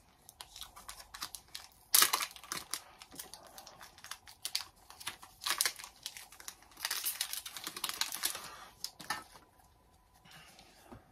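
Pokémon trading cards and a foil booster-pack wrapper being handled: a run of light clicks with crinkling, tearing rustles, the loudest a sharp crinkle about two seconds in and a longer rustle around seven seconds in.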